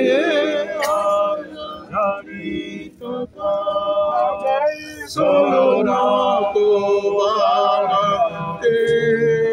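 Several voices singing together, men's voices prominent, in long held notes.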